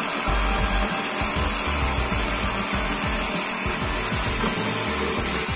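Electric drill driving a reciprocating saw adapter, its blade sawing steadily through a wooden post, with background music playing over it.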